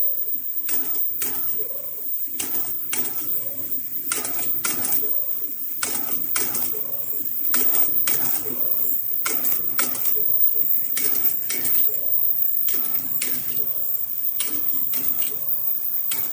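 Automatic face-mask machine with an ear-loop welding station running: a quick, uneven series of short sharp clacks, about one to two a second, as the welding head presses the ear loops onto the mask strip, over a steady machine din.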